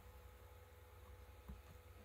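Near silence: room tone with a faint steady low hum and a couple of faint ticks about one and a half seconds in.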